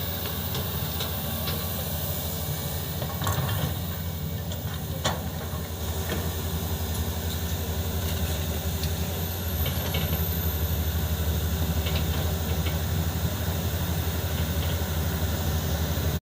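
Excavator's diesel engine running steadily, with a couple of sharp metallic knocks about three and five seconds in; the engine grows slightly louder after about six seconds.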